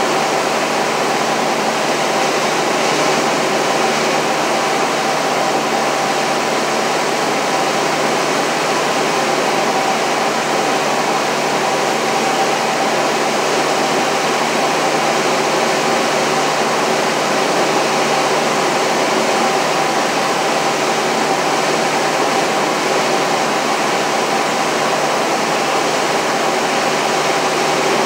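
A single-engine light aircraft's engine and propeller running steadily in flight, heard inside the cabin as a constant loud hum with a steady tone.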